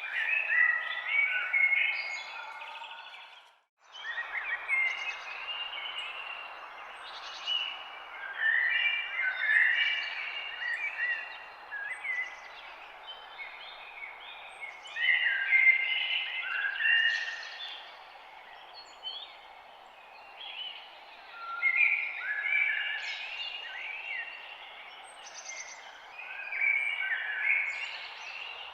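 Several birds chirping and singing in overlapping short phrases over a steady background hiss. The sound drops out briefly about four seconds in.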